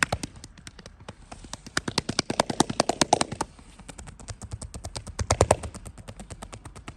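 Hands striking the body in rapid, even succession during a percussive massage, several strikes a second. The strikes grow louder in runs about two to three seconds in and again about five seconds in.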